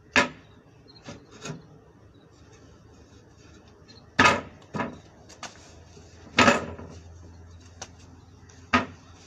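Plywood table being knocked and jostled by hand: a series of sharp wooden bangs a second or more apart, the loudest near the start, about four seconds in and about six and a half seconds in.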